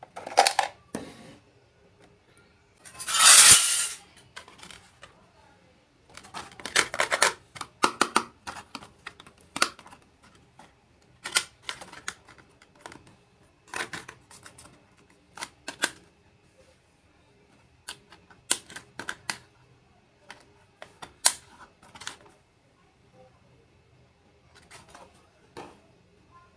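Irregular clicks and taps of small miniature toy kitchen pieces being handled and set down, with a few short rustling bursts; the loudest rustle comes about three seconds in.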